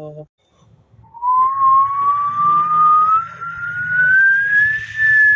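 A person whistling with the mouth: one long, pure note that starts about a second in and slowly rises in pitch, levelling off near the end, done as a mouth sound effect.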